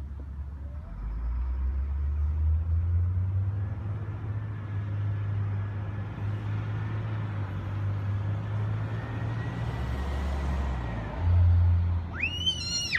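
A road vehicle passing, its noise building over several seconds and then easing off, over a heavy low rumble of wind on the microphone. Just before the end there is a short, high-pitched squeal.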